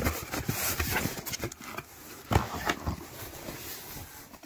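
Boxed tools being handled and put down on a table: a run of irregular light knocks and rustles, with one louder knock about two and a half seconds in.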